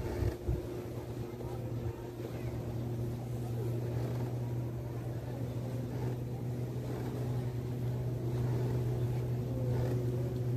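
An engine running at a steady pitch, a low, even hum that grows slightly louder toward the end, with a couple of faint ticks just at the start.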